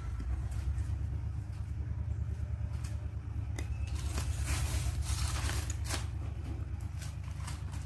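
Light rustling of lettuce leaves and a plastic bag being handled, with a few small clicks, over a steady low rumble. The rustling is strongest around the middle.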